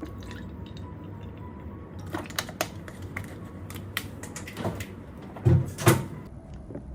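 Light clicks and knocks of objects being handled, then two louder thumps close together about five and a half seconds in, like a door or cupboard being shut.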